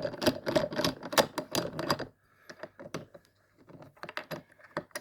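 A rapid run of sharp clicks and knocks as a sofa leg is unscrewed from its unit by hand. The clicks thin out to a few quieter ones about two seconds in.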